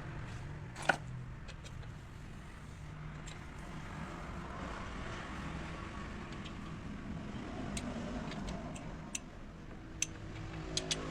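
A steady low hum with sharp clicks over it: one loud click about a second in, then a few fainter ones and a small cluster near the end.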